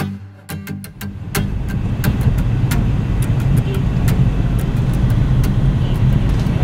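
Road and engine noise of a moving car heard from inside the cabin: a loud, steady low rumble that sets in about a second and a half in.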